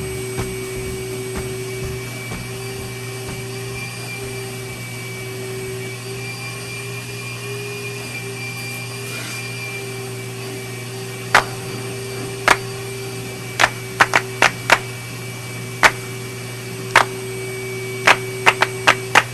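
Vacuum cleaner running steadily on a car's interior through a long hose, a constant motor hum with a whine. From about eleven seconds in comes a string of sharp, irregular clicks and knocks, the loudest sounds here.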